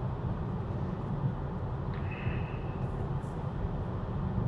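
Steady low road and tyre rumble inside a Tesla's cabin, heard while the car drives at highway speed. A short faint high tone sounds about two seconds in.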